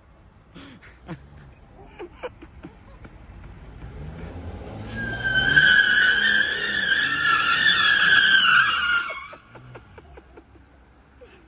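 Car tyres squealing as the car spins its wheels and slides round in a circle, a loud wavering screech lasting about five seconds, with the engine revving up and down underneath. The squeal builds up about four seconds in and cuts off near the end.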